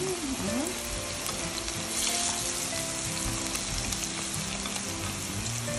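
Sticky rice and mung bean patties sizzling steadily as they shallow-fry in a thin layer of oil in a pan.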